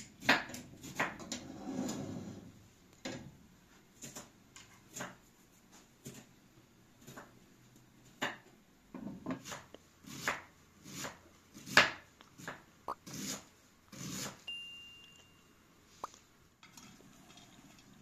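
Irregular knocks of kitchen work: a pot clattering on a gas stove at first, then a kitchen knife striking a round wooden chopping board as white cabbage is sliced, the strokes unevenly spaced with one sharp knock a little past the middle.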